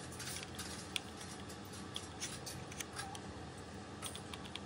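Sparse light clicks and taps of hard plastic as the vegetable slicer's black blade inserts are picked up and handled.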